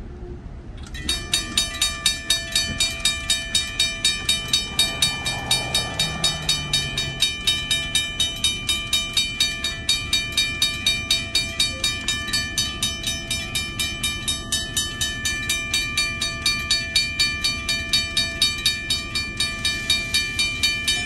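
Railroad grade-crossing warning bell starts about a second in and rings in fast, even strokes, about three a second. It signals an approaching train while the crossing lights flash and the gate arms come down.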